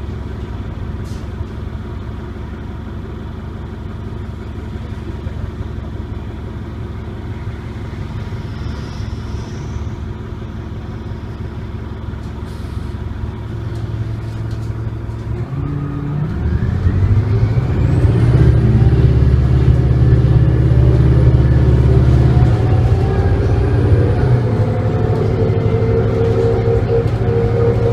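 Inside a New Flyer D40LF diesel bus: steady engine and road noise while cruising. About halfway through, the Detroit Diesel Series 50 inline-four engine revs up and gets louder as the bus accelerates, with rising tones and a faint high steady whine, and the pitch climbs again near the end.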